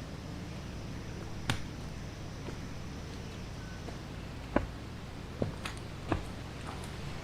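Four sharp clicks or knocks at uneven intervals, about one and a half seconds in and then three closer together past the middle, over a steady low rumble.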